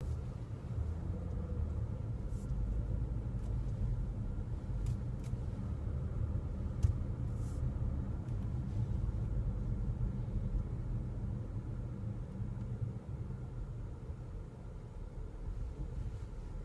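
2015 Nissan Murano rolling slowly, a steady low road and engine rumble, with a few sharp clicks in the first nine seconds or so, the loudest about seven seconds in.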